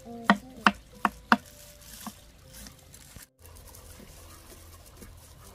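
Knife chopping into a wild tuber on a board: four sharp strokes in quick succession, then a single fainter one, then only low background noise.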